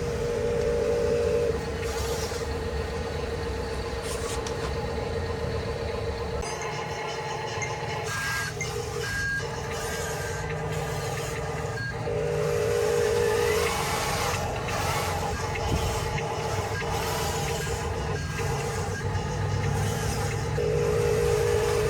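Radio-controlled construction trucks running, with a steady electronic engine-and-warning sound effect that holds one tone and gets louder three times.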